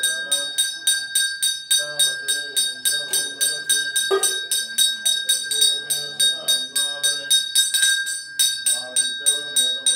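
Temple bell rung rapidly and evenly during the puja, about four to five strokes a second, each stroke ringing on at several high tones. Voices can be heard beneath it.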